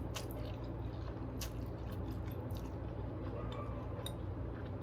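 A person chewing and eating, with small scattered mouth clicks and smacks over a steady low room hum.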